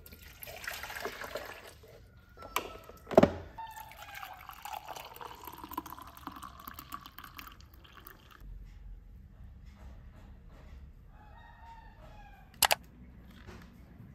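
Hot coffee poured from a coffee maker's pot into a glass mug, a stream of liquid running for several seconds, with a loud clunk about three seconds in. Near the end, two sharp clacks as a laptop lid is handled.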